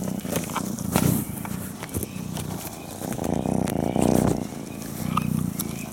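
An African wildcat kitten of about four months purring while having its head scratched: a rapid, motor-like low rumble that swells and fades in waves with its breathing. A few sharp clicks come through over it.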